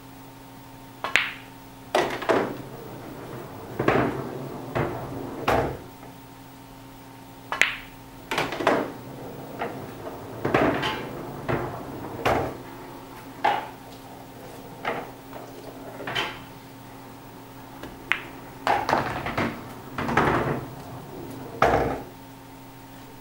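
Pool cue striking the cue ball, then a long run of sharp clacks and knocks as pool balls collide, hit the cushions and drop into the pockets and the ball return, over a steady hum.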